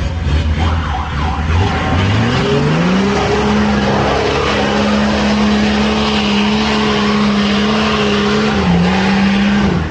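Off-road car engine revving up over about a second, then held at high, steady revs for several seconds over a loud rushing noise. It dips briefly near the end and then cuts off suddenly.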